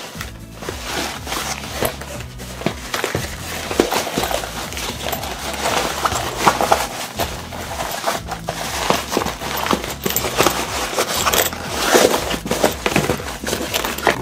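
Vegetable-tanned leather bag and its fabric lining being handled and turned right side out: irregular rustling, creasing and rubbing of leather and cloth, with many short crackles.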